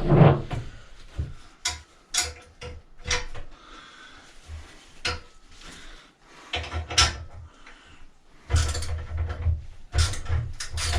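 Irregular metallic clicks and knocks of a socket wrench being worked on an exhaust mounting bolt, with a faster, denser run of clicks near the end.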